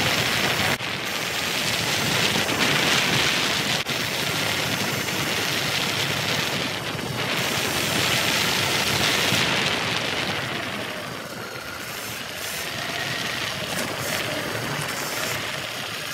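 Wind rush on the microphone and tyre noise from a Segway X260 electric dirt bike riding at speed on pavement. The rush eases after about ten seconds, leaving a faint whine.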